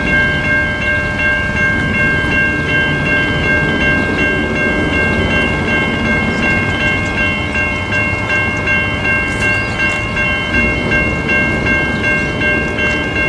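Level crossing warning bells ringing continuously, with an even, rapid repeating pulse of high tones, as a train approaches. A low rumble runs underneath.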